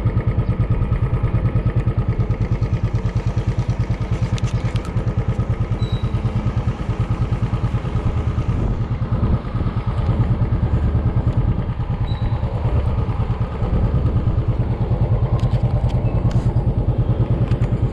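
Motorcycle engine running steadily under way, a continuous low throb.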